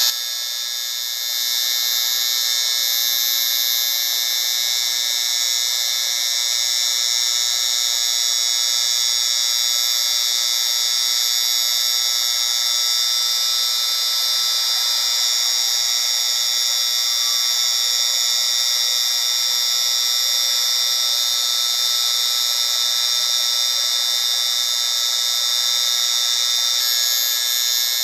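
Steady, high-pitched hiss with thin steady tones running through it, getting a little louder about a second in: a tinnitus-masking noise track.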